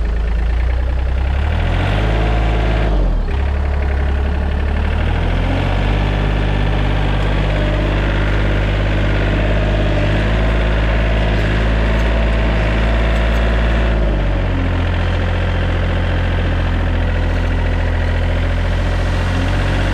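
Yanmar C30R compact loader's diesel engine running, back in life now that its electric lift pump has power. The engine note shifts in pitch a few times, about two, six and fourteen seconds in.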